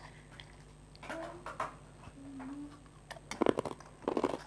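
Crispy basreng (fried meatball chips) being bitten and chewed. A run of loud, close crunches starts about three seconds in.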